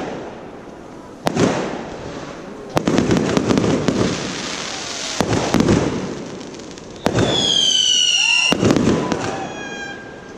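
Aerial fireworks going off: several sharp bangs and spells of crackling as shells burst. About seven seconds in a loud whistling firework sounds for over a second, its pitch sliding down, followed by fainter falling whistles.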